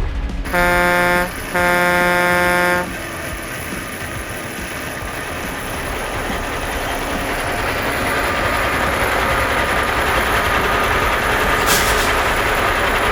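Two blasts of a truck horn, a short one and then a longer one, followed by a steady rushing mechanical noise that slowly grows louder.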